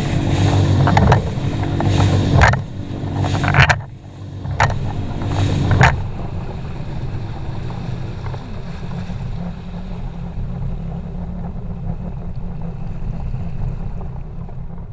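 Bass boat's outboard engine running fast through rough water, with the hull slamming into waves and spray hissing, several hard slaps in the first six seconds. About six seconds in it slows to a quieter, steady low engine drone with water washing along the hull.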